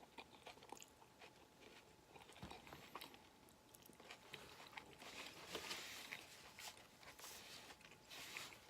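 Faint close-up chewing of a chicken and rice bowl, with small scattered mouth clicks.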